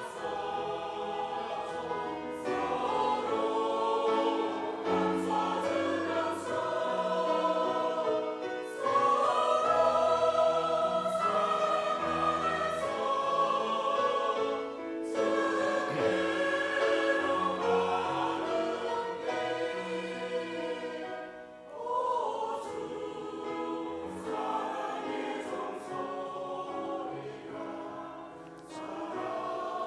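Church choir singing a hymn in several parts, holding sustained chords that move every second or two, with a couple of brief breaths between phrases.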